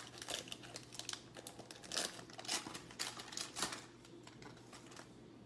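Trading cards being flipped and slid against each other in the hand, irregular short crisp swishes and clicks that thin out after about four seconds.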